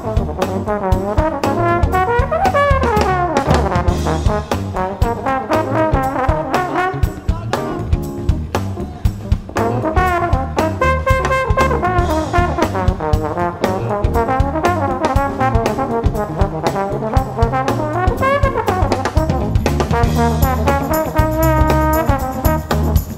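Live band playing: a trombone plays a lead line with sliding, bending notes over a busy drum-kit groove and electric bass.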